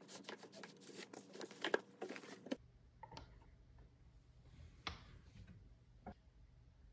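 Faint rustling and a quick run of small clicks, as of things being handled. Then, after an abrupt change about two and a half seconds in, a low steady hum with a few scattered light taps.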